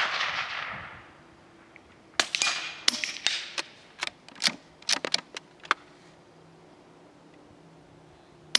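Sharp cracks of a suppressed bolt-action rifle: the fading report of a shot fired just before, then a string of quick sharp clicks and knocks between about two and six seconds in as the bolt is worked, and another shot right at the end.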